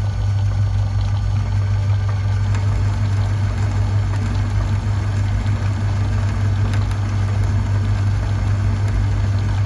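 Small metal lathe running steadily with a strong low motor hum, its tool bit turning down a thin 1/8-inch silver-steel rod held in a collet.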